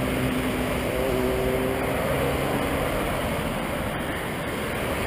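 Road traffic going by: a vehicle's engine hum that fades out over the first couple of seconds, leaving a steady rush of traffic noise.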